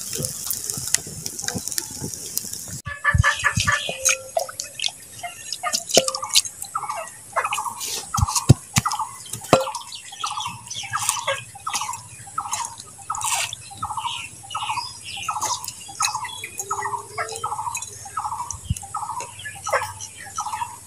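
An open wood fire hissing under roasting fish. Then raw rice grains rattling and clicking as they are scooped into a bamboo tube and spill onto a glass bowl, while a bird calls over and over in the background, about three calls every two seconds.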